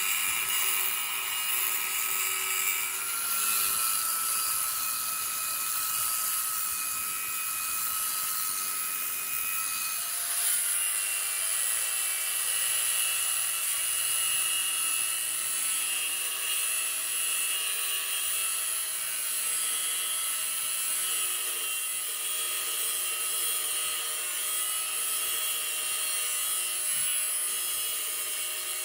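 A high-speed rotary power tool running steadily with a high-pitched whine, its pitch shifting about ten seconds in as the load changes.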